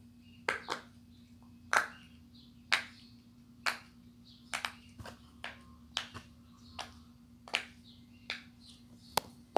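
Silicone Pop It fidget toy having its bubbles pressed one at a time: a string of sharp little pops, irregular, about one or two a second.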